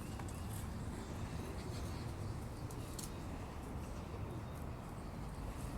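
Quiet outdoor background: a steady low rumble with a few faint ticks.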